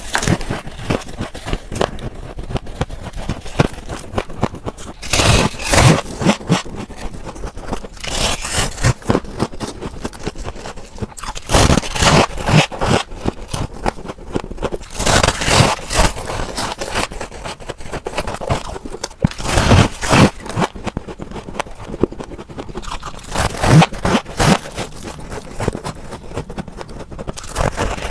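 Refrigerator frost ice being scraped and bitten close to the microphone: continuous crackling and crunching, with louder bursts every few seconds.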